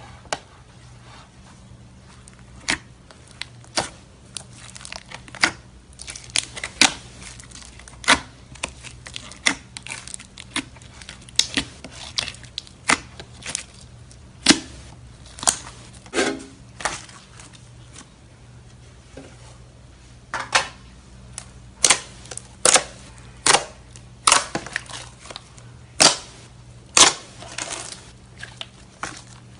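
Slime being squished and poked, giving sharp, irregular clicks and pops over a steady low hum.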